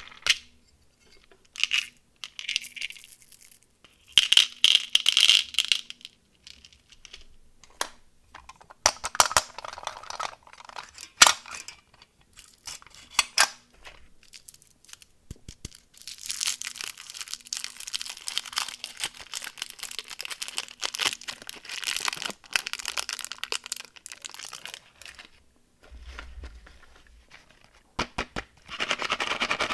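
Candy packaging being opened and handled: wrappers tearing and crinkling, with sharp clicks and clinks of candies or small boxes. About halfway through there is a longer stretch of steady crinkling.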